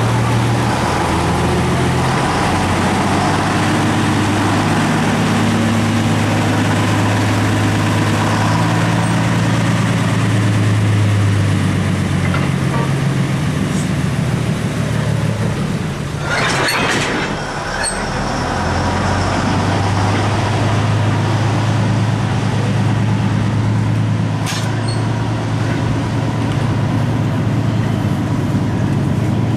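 Andrew Barclay 0-4-0 diesel shunter No.235's engine running under load while shunting two goods wagons, its note rising and falling. A short hiss comes about sixteen seconds in.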